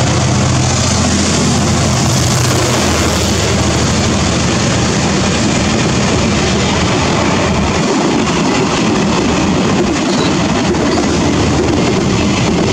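Diesel-electric freight locomotive passing close, its engine drone fading about three seconds in. The freight wagons then roll by with a steady loud rumble and clatter of steel wheels on the rails.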